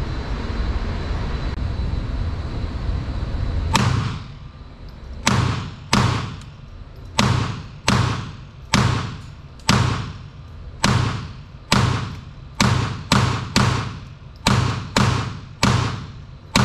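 A steady rushing noise for about the first four seconds, then a string of about twenty .22 LR shots from a Kel-Tec CP33 pistol, fired one at a time at roughly one to two a second and a little quicker near the end. Each shot rings off the walls of the indoor range.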